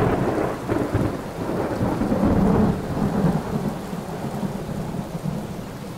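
Thunderstorm sound effect: steady rain under a low rumble of thunder that swells about two seconds in and then slowly dies away.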